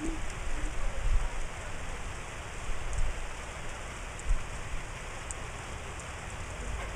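Steady rain falling, an even hiss, with gusts of wind buffeting the microphone as low rumbles in the first second or so and again about three and four seconds in.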